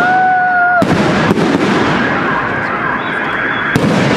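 Aerial fireworks display: a dense crackle of bursting shells, with sharp bangs about a second in and again near the end. A short steady whistle sounds in the first second.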